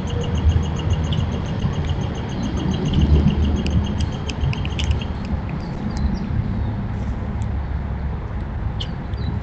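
Birds calling: a rapid, even series of high chips, about six a second, that stops about five seconds in, followed by scattered short chirps, all over a loud low rumble.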